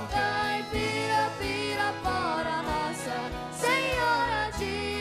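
Live sertanejo music: acoustic guitars playing under a sung melody line with vibrato.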